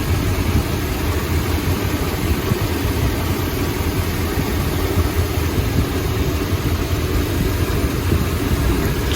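Chrysler 440 V8 idling steadily, running smoothly now that the misfiring number 7 spark plug wire is plugged back in.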